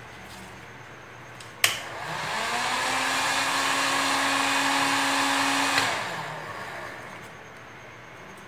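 Heat gun clicked on, its fan spinning up to a steady whine and rush of air for about four seconds, then clicked off and winding down. It is warming the contact cement on EVA foam so the glue grips again.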